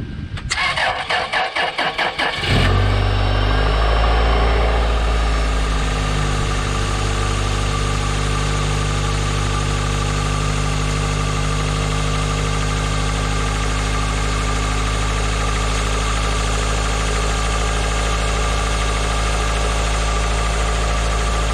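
A plow truck's engine, on a dead battery boosted from a jump-starter pack, cranks for about two seconds, catches, revs up briefly and settles into a steady idle. Under the idle is a vacuum leak that the owner says can be heard.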